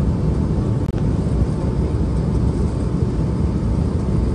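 Steady low rumble of a jet airliner's cabin noise: engine and airflow noise heard from inside the passenger cabin.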